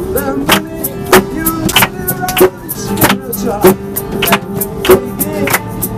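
Singing to a strummed acoustic guitar, with hand-clapping keeping a steady beat of about one strong clap every 0.6 seconds.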